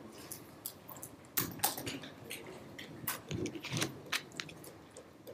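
Scattered rustling, clicks and knocks of a class handling paper quiz sheets and shifting at their desks, irregular and loudest in the middle of the stretch.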